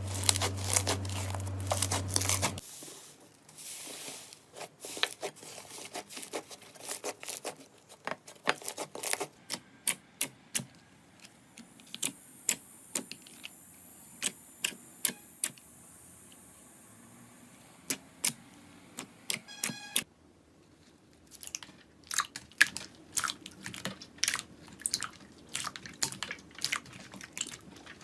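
Slime being squeezed and poked by hand: many irregular, sharp sticky clicks and crackling pops. A steady low hum runs under the first couple of seconds, then stops.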